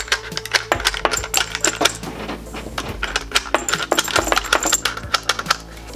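Maglula AR15/M16 loader-unloader stripping 5.56 cartridges out of an AR magazine: a quick run of sharp lever clicks, with brass cartridges dropping and clinking against one another.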